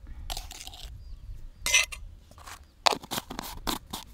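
Cooking utensils clinking and scraping against a pot or dish while the curry is seasoned and stirred. There is a run of short sharp clinks, the loudest about two seconds in, then a quick flurry of them near the end.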